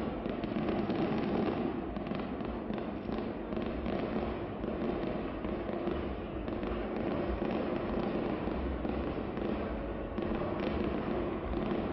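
Fireworks display heard from afar: a steady, dense run of pops and crackles with no break.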